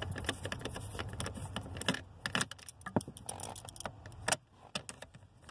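Rapid metallic clicking and rattling of a hand socket driver with a 9/32-inch socket backing out the screws that hold the OBD-II diagnostic connector under the dash. The clicks are dense at first, then thin to a few separate sharper clicks.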